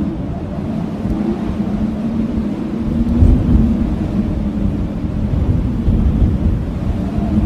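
Blizzard wind blowing hard in gusts: a low rumble with a wavering howl over it, swelling about three seconds in.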